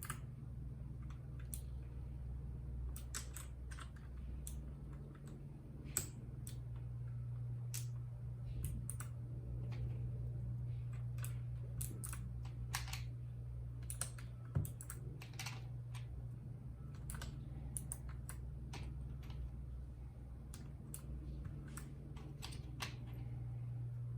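Keys being typed on a RAKK Lam Ang Pro mechanical keyboard with bronze switches: irregular, scattered key clicks over a steady low hum.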